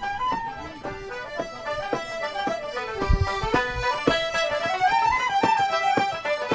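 Traditional Irish tune played by a small group: button accordion carrying the melody with fiddle and tenor banjo, and the beat of a bodhrán.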